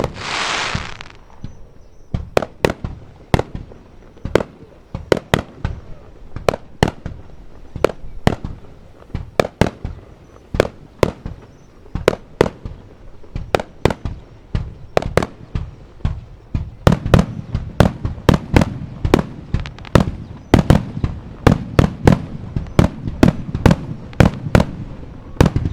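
Fireworks shells bursting in quick succession: sharp bangs about two a second, coming denser and louder from about two-thirds of the way through. A short hissing rush sounds right at the start.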